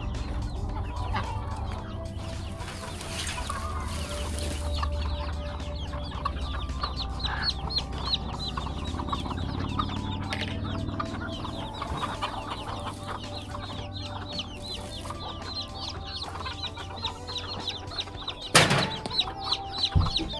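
Chickens clucking, with many short high chirps over a low rumble, and one sharp knock near the end.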